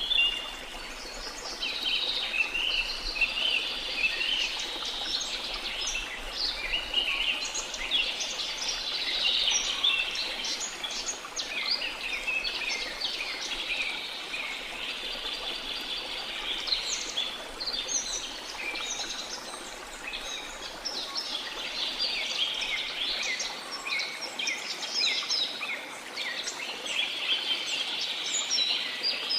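Dense chorus of tropical rainforest birds chirping and trilling over one another without pause, over a steady rushing hiss from a waterfall.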